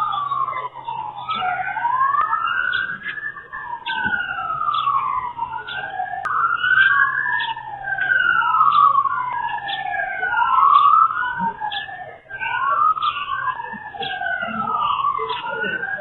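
Two emergency vehicle sirens wailing at once, each rising and falling in pitch every few seconds and out of step with the other, heard through a doorbell camera's thin microphone.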